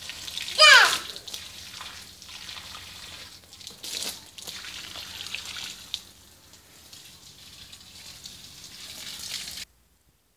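Water from a garden hose spraying and splashing onto wet concrete, a steady hiss. About a second in, a short high squeal slides down in pitch, the loudest moment; the sound cuts off suddenly near the end.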